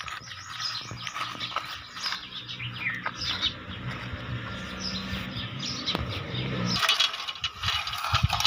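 Plastic toy vehicles scraped and clicked through dry dirt and leaves by hand, growing into a busier rattling and scraping about seven seconds in, with birds chirping throughout.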